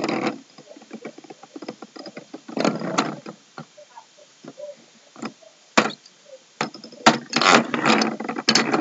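Lego spinning tops and loose plastic Lego pieces clattering in a Lego battle stadium: a run of sharp plastic clicks and knocks, with denser rattling bursts about two and a half seconds in and again near the end.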